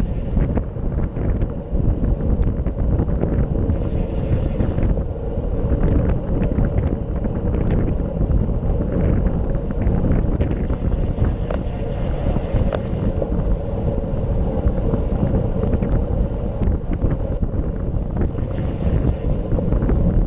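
Wind rushing over the microphone of a handlebar-mounted camera on a road bike at racing speed, over a steady low rumble of tyres on asphalt.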